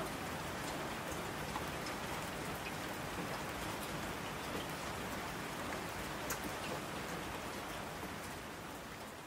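Steady rain falling, with scattered individual drops heard as small ticks over the wash; it begins to fade out near the end.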